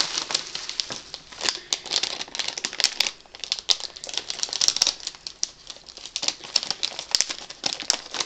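A small plastic blind-bag packet crinkling and crackling in the hands as it is worked open, in a quick irregular run of sharp crackles.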